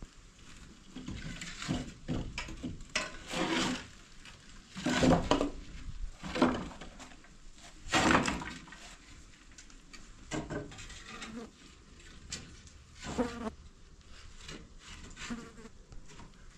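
A fly buzzing close to the microphone, swelling and fading as it passes several times; the loudest passes come about five, six and eight seconds in, and again near thirteen seconds.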